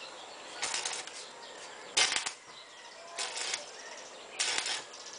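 Electric arc welder crackling in four short bursts about a second apart, the second the loudest: short welds being struck on a stainless steel railing.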